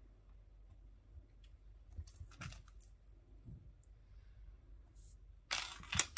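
Cats playing with toys: scattered light clicks and rustles, then a louder burst of rustling with sharp clicks near the end.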